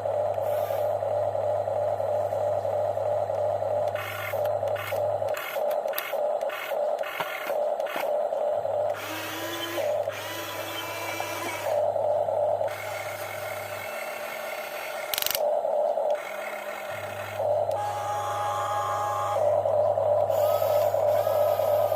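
Electric motors of remote-controlled toy excavators whining steadily, stopping and starting in quick short runs around the middle, with clicks. A low steady hum comes and goes in three long stretches.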